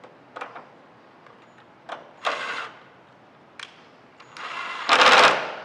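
Terminal screws on a mini split condenser's terminal block being driven in two short bursts by a small motorized screwdriver, about two seconds in and a longer, louder one near the end, with a few sharp clicks of the tool and wires between.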